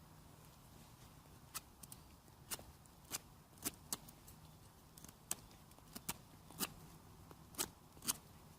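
Wood campfire crackling: sharp pops and snaps at irregular intervals, a dozen or more, over a faint steady background.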